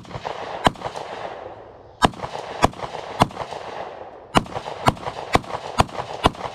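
A gun fired about ten times, the shooter emptying the magazine. The shots come roughly half a second apart in short strings, with two pauses of over a second, and each leaves an echoing tail.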